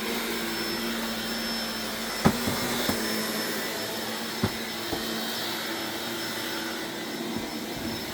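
Vacuum cleaner running steadily with a steady hum and a high whine, and a few sharp clicks, the loudest about two and four and a half seconds in.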